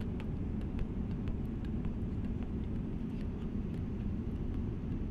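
Steady rumble of an airliner's cabin noise in flight, with faint small clicks from fingers moving close to the microphone, mostly in the first second or two.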